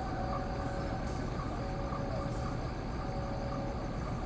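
Diesel locomotive of an approaching passenger train running steadily: a low engine rumble with a faint steady whine.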